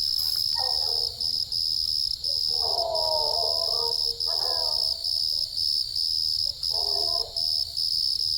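Steady night chorus of crickets or katydids, with a coonhound bawling in the distance a few times as it works a raccoon track.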